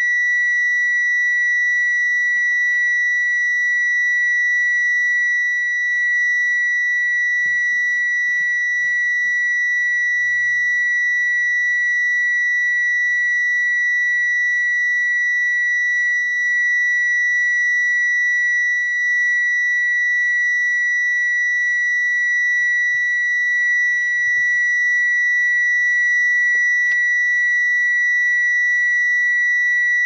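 Taxi parking sensor sounding one continuous high-pitched tone that never breaks into separate beeps: the solid tone that signals an obstacle at the closest range.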